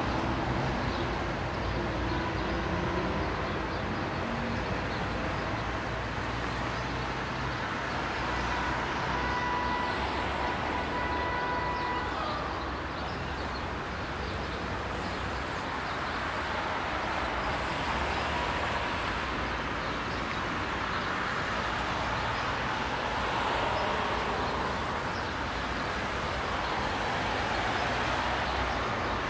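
Transap D-2801 diesel locomotive approaching light engine: a steady low engine drone and rail rumble mixed with road traffic noise. A faint steady tone is heard for about three seconds a third of the way in.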